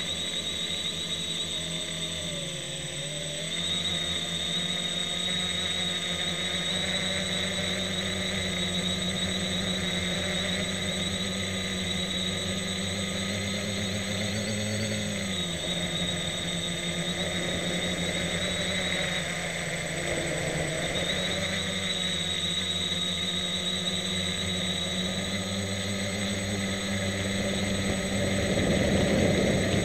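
A homebuilt Aeroquad multicopter's electric motors and propellers whirring in flight, heard from a camera on board. The steady whine dips in pitch briefly twice as the throttle changes, and a louder rush of air comes in near the end.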